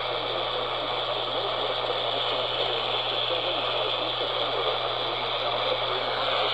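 AM radio static: a steady hiss with a low hum under it.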